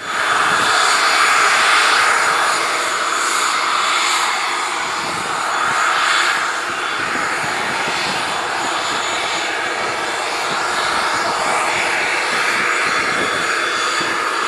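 Pratt & Whitney Canada PW127 turboprop engine of an ATR 72-600 running on the ground: a loud, steady turbine rush that swells and eases every few seconds.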